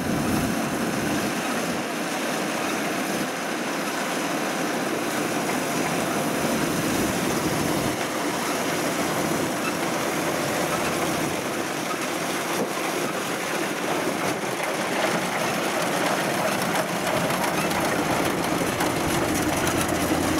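Kubota DC93 combine harvester running steadily as it cuts standing rice, a continuous mechanical noise from its engine and cutting and threshing gear, with strong wind buffeting the microphone.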